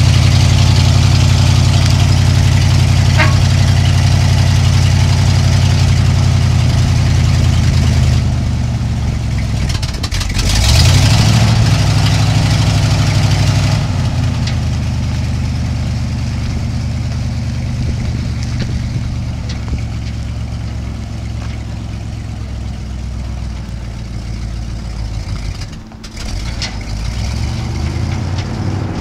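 1976 Ford F600 dump truck engine idling steadily, revving up briefly about ten seconds in, then running on and growing gradually fainter.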